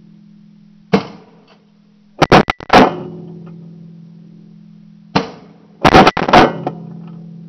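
Shotgun shots heard close up from a gun-mounted camera: one sharp report about a second in, then two tight bursts of blasts, one around two to three seconds in and one around six seconds in, each dying away in a long echo. A steady low hum runs underneath.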